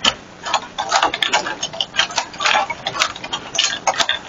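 Quick, irregular metallic clicks and rattles of a door lock and keys being worked.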